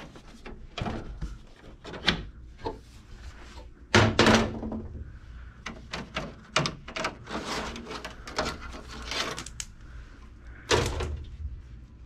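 Plastic front panel and air filters of a Fujitsu wall-mounted mini-split indoor unit being opened and handled: a run of plastic clicks and knocks, with louder thumps about four seconds in and near the end.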